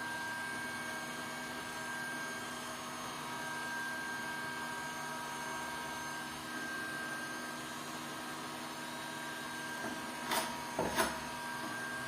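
A small motor running steadily with a faint whine, and two short sharp noises close together near the end.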